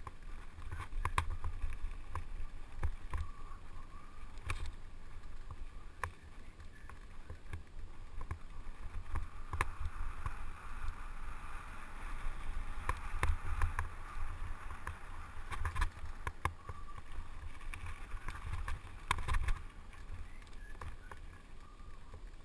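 Mountain bike rolling down a bumpy dirt trail: steady wind rumble on the bike-mounted action camera's microphone, tyre noise on the dirt, and many sharp knocks and rattles over the bumps.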